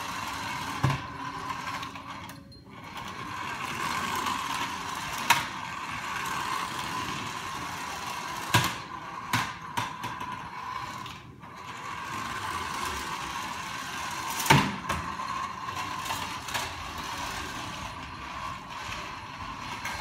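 Small toy remote-control car's electric motor and plastic gears whirring as it drives over a hardwood floor, cutting out briefly twice. A few sharp knocks come through it, the loudest about two-thirds of the way in.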